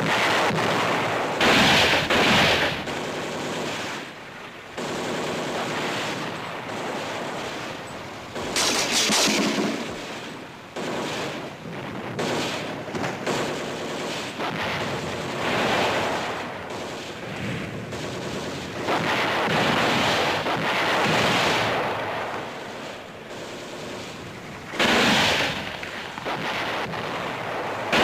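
Battle sound effects from an old film soundtrack: a continuous noisy bed of gunfire, broken by several loud blasts of shell or grenade explosions.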